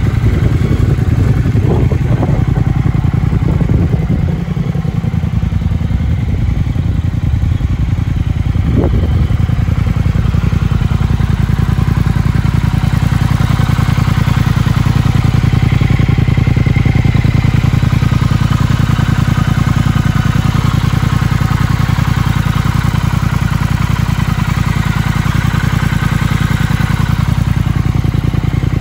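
2022 Triumph Speed Twin's 1200 cc parallel-twin engine idling steadily, with a few short changes in the first nine seconds.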